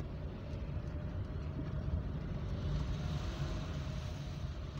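Car running at low speed, heard from inside the cabin: a steady low engine and road rumble, with a hiss that swells about halfway through.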